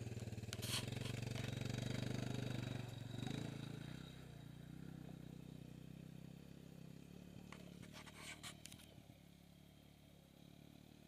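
Sport ATV engine revving and running in low gear as the quad pulls away, loud at first and then steadily fading as it moves off. A few sharp clattering clicks near the start and about eight seconds in.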